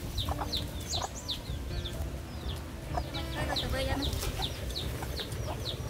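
Chickens peeping: many short, high chirps that fall in pitch, two or three a second, over a low steady rumble.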